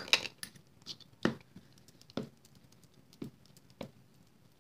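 Ink pad tapped against a clear acrylic stamp block to ink the stamp: about six short plastic taps at irregular spacing, about a second apart.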